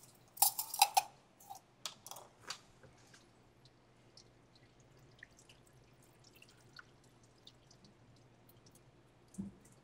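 A shaken cocktail double-strained from a metal shaker tin through a fine-mesh strainer into a glass of ice: a few metal clinks in the first couple of seconds as tin and strainer are handled, then faint dripping and trickling of the liquid. A soft knock comes near the end.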